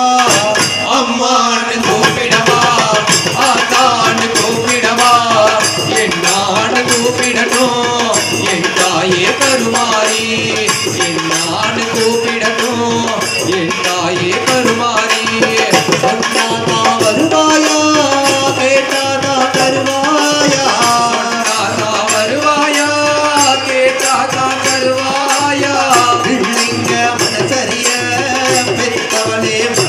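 Men singing a Tamil devotional song to the goddess Amman through microphones, with fast, continuous drumming on pairs of double-headed drums played by hand.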